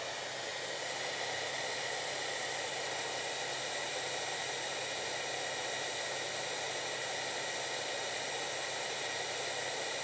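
Handheld hair dryer running steadily: an even rush of blown air with a faint high whine from its fan motor.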